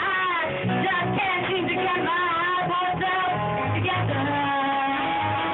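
A woman singing a bluesy jazz ballad, backed by a small band with guitar and bass; near the end she holds one long note.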